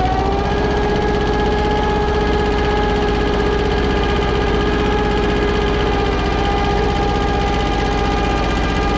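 Kubota tractor's diesel engine running steadily under load, pulling a small plough through stubble.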